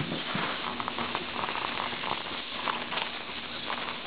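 Tire plug kit reamer rasping in and out of a nail hole in a tire, short irregular scraping strokes over a steady hiss of air escaping through the hole.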